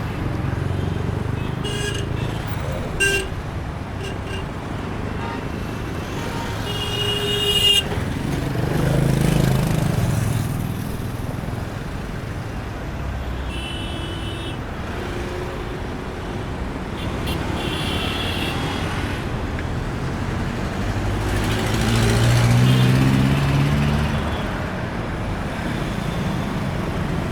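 Busy city street traffic: continuous road noise from cars and trucks, with several short car horn toots and two louder vehicles passing close by, one about a third of the way in and one near the end.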